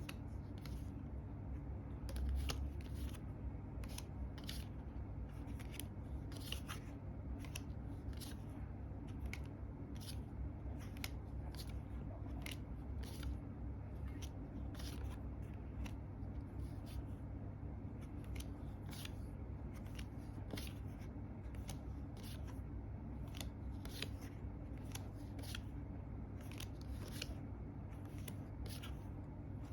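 Paper tarot cards handled one at a time, each flip or placement giving a short, crisp snap, irregularly about once or twice a second, over a steady low hum.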